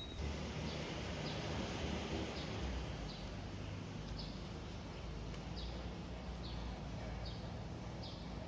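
A small bird chirping over and over, short falling chirps about once a second, over a steady low background hum.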